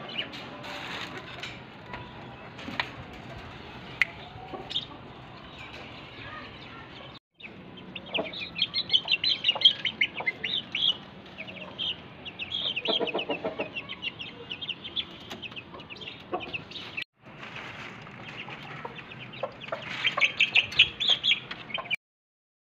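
Chickens clucking, with fast runs of short high calls. The calls come in three stretches split by two brief gaps, and are thickest in the middle and near the end.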